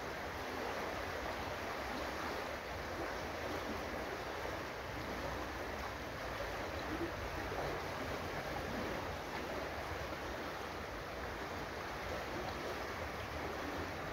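Shallow, clear mountain river flowing over a cobble bed: a steady rushing and rippling of water.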